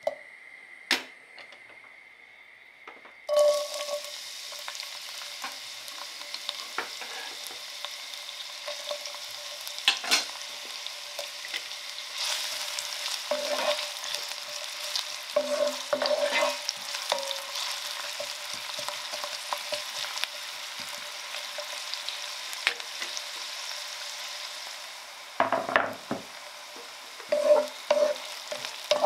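Lard melting quietly in a cast-iron pot, with a couple of taps of a wooden spatula. About three seconds in, chopped onions hit the hot fat and sizzle steadily, with the wooden spatula stirring and scraping across the pot bottom every so often.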